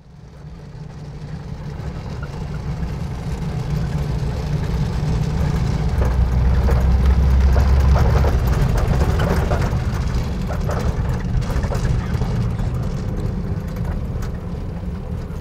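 Off-road vehicle's engine running under way, heard from inside the cabin, a steady low drone with rattles from the body. It grows louder over the first few seconds.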